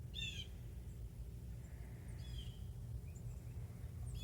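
A few short, high songbird chirps, each sliding down in pitch: one about a quarter second in, another about two seconds in, and one more at the end, over a steady low rumble.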